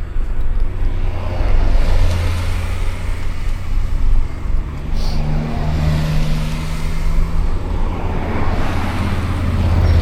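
Wind rushing and buffeting over the microphone of a bicycle coasting downhill, a loud, steady deep rumble with hiss above it.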